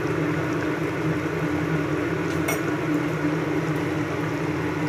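Fish curry gravy simmering and bubbling in a pan over a steady low hum. A single sharp click comes about halfway through.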